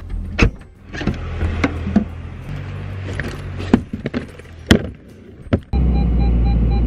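Car door and cabin knocks and clicks as the driver gets in, then about two-thirds of the way in the car's engine starts and runs with a steady low hum while the dashboard warning chime beeps over and over.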